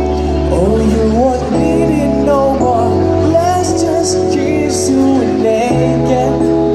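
A voice singing a slow, wavering melody over steady held chords and a bass line that changes note a few times.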